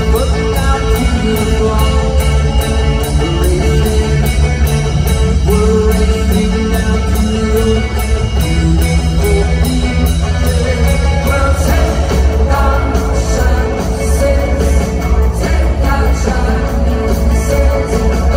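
Live rock band playing through an arena PA, lead vocal with backing singers over drums, guitars and keyboards, with a steady beat and heavy, boomy bass, heard from the arena stands.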